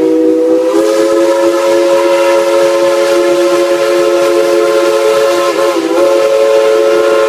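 Steam locomotive's chime whistle blowing one long, loud chord of several notes. It wavers briefly about five and a half seconds in, then cuts off sharply.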